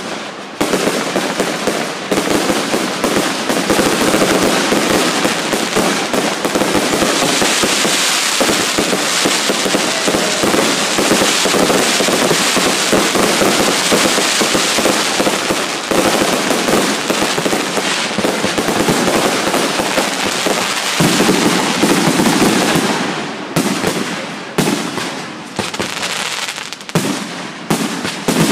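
Aerial fireworks bursting overhead in a dense, continuous barrage of bangs and crackling, thinning to separate bangs with short gaps about 23 seconds in.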